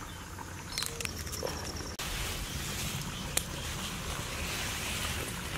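Hands tossing a large heap of spiced french fries on a plastic sheet, making a steady rustle that starts about two seconds in, after a few faint clicks.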